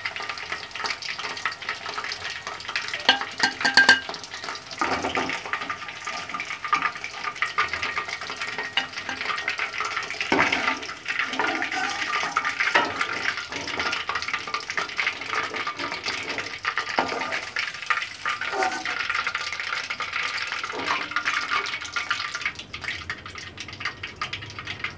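Chicken pieces deep-frying in hot oil, sizzling steadily, with repeated scrapes and knocks of a spoon against the pan as the fried pieces are lifted out.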